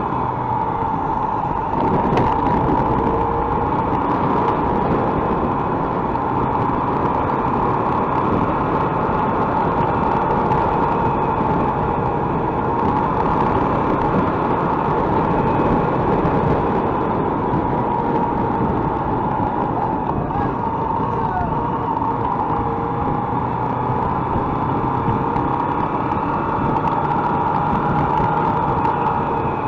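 Mondial MH Drift motorcycle running steadily under way, its engine note drifting slightly up and down with speed over a steady rush of road and wind noise.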